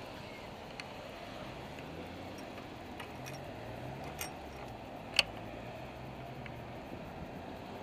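Steady street traffic noise with a vehicle engine humming low through the middle, and a few sharp clicks, the loudest about five seconds in.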